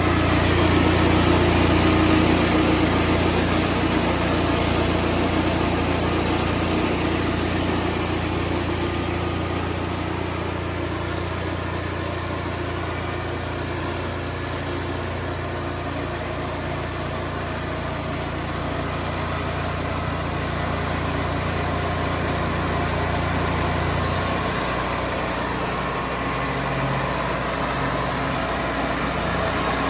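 Sawmill engine running steadily, likely through a cut. About 24 s in, its low hum changes and turns uneven.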